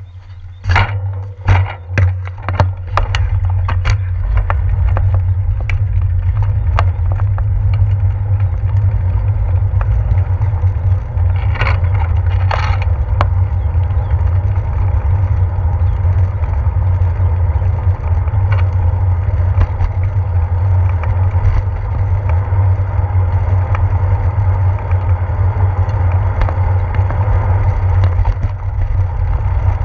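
Low, steady rumble of wind and road vibration picked up by a handlebar-mounted action camera in its housing as a bicycle rolls along. A run of sharp knocks and clicks comes in the first few seconds, and a few more about twelve seconds in.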